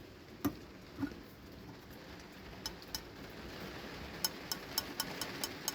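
Light taps on the steel frame of a speaker driver: a knock about a second in with a short ring, then a run of quick light clicks near the end, about four a second. The frame rings only a little: a little frame resonance, pretty good for a steel frame.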